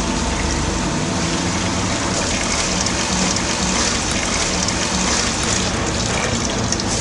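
Tap water running steadily from a hose into a plastic bag, a continuous gushing splash.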